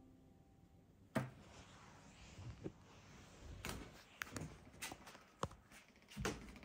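Background music fading out in the first second, then soft footsteps and a series of irregular short knocks and thumps as someone walks through a small room.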